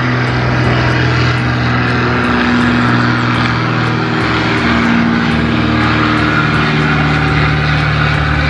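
Steady jet engine roar from an Embraer airliner climbing away after takeoff, with a low, even hum under it.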